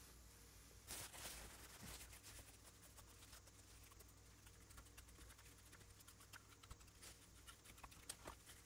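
Near silence: faint room tone with soft, scattered taps and rustles of a cotton swab and tissue dabbing weathering onto the underside of a plastic scale-model truck.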